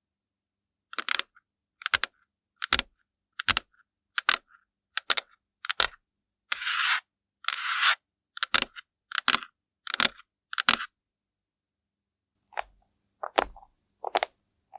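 A regular run of sharp, crisp clicks, roughly one every three-quarters of a second. Two longer scratchy sounds come a little after the middle. After a short pause, three more clicks come near the end.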